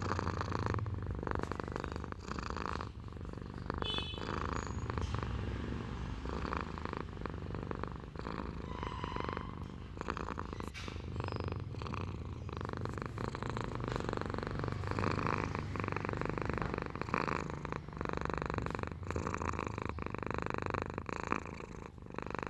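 Domestic cat purring in a steady, continuous rumble, with a few brief clicks scattered through it.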